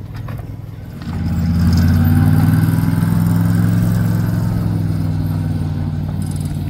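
A motor vehicle's engine running close by, coming in loud about a second in and then slowly easing off with a steady low pitch.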